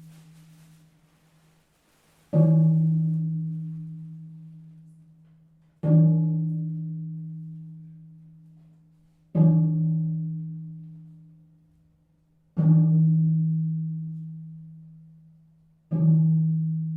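A deep, pitched percussion instrument struck slowly, about once every three and a half seconds: five single strokes, each ringing on one low note and fading away before the next.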